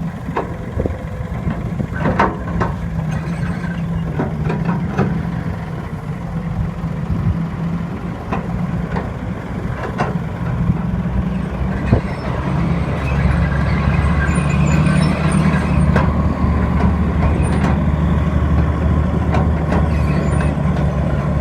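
Heavy diesel engines of a dump truck and an excavator running under load, with scattered metallic knocks. About two-thirds of the way through, a deeper, louder engine note comes in and holds.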